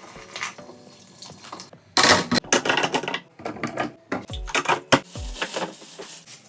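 Kitchen tap water rushing and splashing, with glass and dishes clinking, over background music with deep bass beats; the loudest stretch is a burst of running water about two seconds in.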